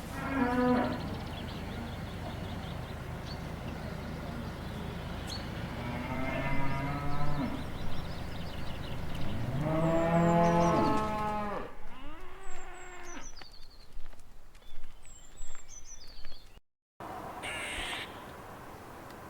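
Cow mooing about four times in long, drawn-out calls, the loudest and longest about ten seconds in, with small birds chirping faintly behind the later calls. A different clip begins after a brief cut near the end.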